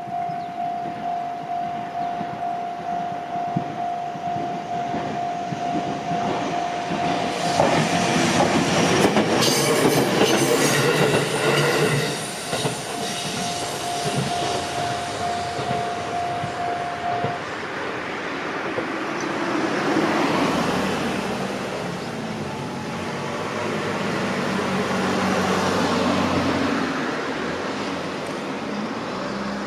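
Japanese level-crossing alarm ringing in a steady beat, about two rings a second, while an electric train passes over the crossing with a clickety-clack of wheels on rail joints, loudest about a quarter of the way in. The alarm stops a little past halfway, and softer rises of road-vehicle engine sound follow.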